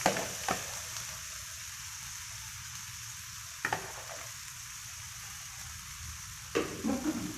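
Marinated pork belly sizzling steadily in a pan, with a few light clicks.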